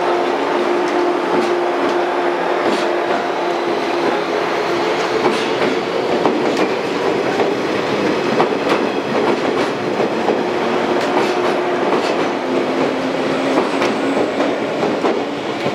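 Shinano Railway 115-series electric multiple unit rolling into the station, wheels clicking irregularly over the rail joints. Under the clicks runs a steady whine that shifts in pitch a few times.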